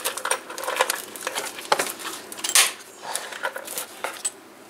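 Irregular clicks and light clinks of small parts being handled as retaining clips are fitted to the halves of a Mercedes W123 heater box. The sharpest click comes a little past halfway.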